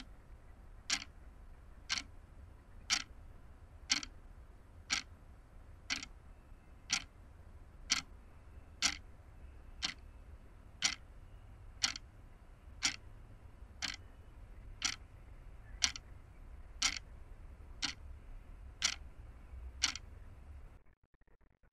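Steady clock-like ticking, one sharp tick about every second, over a low steady rumble; both stop about 21 seconds in.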